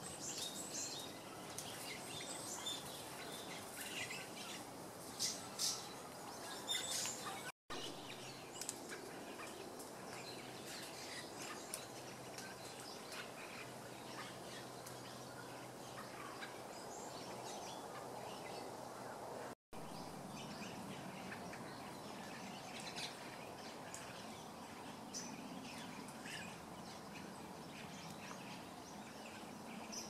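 Scattered short bird calls and chirps from wild songbirds over a steady, faint background hum, busiest in the first few seconds. The sound cuts out briefly twice.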